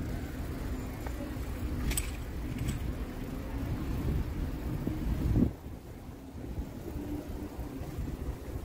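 City street traffic: a car engine and tyre rumble swells and then falls away suddenly about five and a half seconds in. Two brief high clicks come around the two-second mark.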